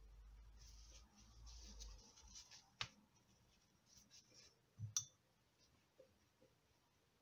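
Faint swishing of a watercolour brush on paper, then two sharp clicks about two seconds apart, the second the louder.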